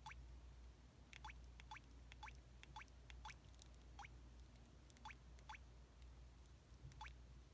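Mobile phone playing a water-drop sound effect through its small speaker: about a dozen faint, quick drip-like blips, each a fast pitch sweep, at uneven spacing.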